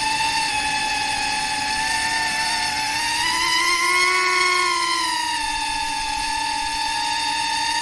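FPV drone's electric motors and propellers whining steadily. The pitch rises for about two seconds around the middle as the throttle goes up, then settles back.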